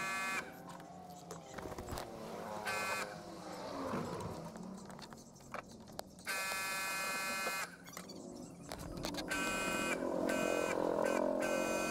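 A buzzing tone sounds five times. Most are short; one about halfway through lasts about a second and a half. Faint background noise runs underneath.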